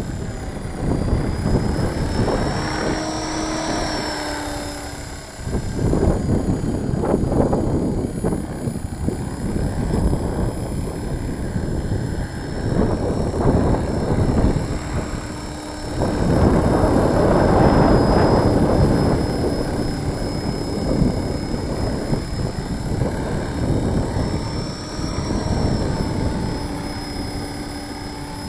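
Walkera V450D03 electric RC helicopter hovering, its motor and rotor giving a steady high whine. Strong wind buffets the microphone in gusts, loudest a little past halfway.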